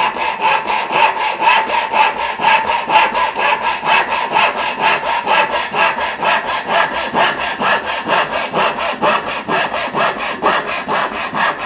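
A freshly hand-sharpened Disston backsaw cutting into a wooden board, in a steady run of quick, even strokes that stops suddenly at the end.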